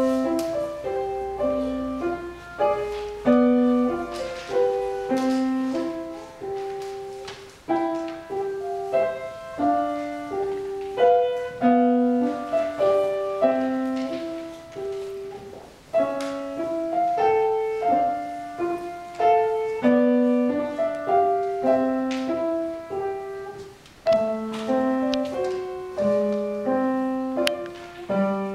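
Upright piano played solo: a simple tune over a repeating accompaniment, note after note struck and fading, in phrases with short breaks about every eight seconds.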